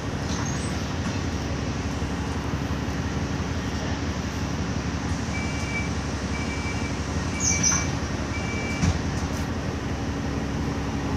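Alexander Dennis Enviro400 double-decker bus's diesel engine running steadily as the bus drives, heard from inside on the upper deck. About halfway through there are four short high beeps, evenly spaced about a second apart.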